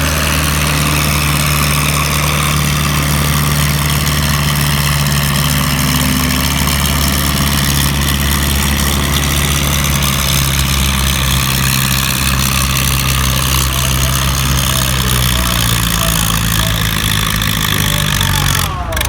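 Farm tractor engine running hard under heavy load while pulling a weight-transfer sled, a steady loud note that sags slightly in pitch as the sled bogs it down, then drops away abruptly near the end.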